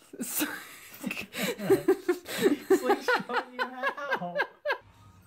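A person laughing in quick repeated bursts that rise and fall in pitch, stopping abruptly near the end.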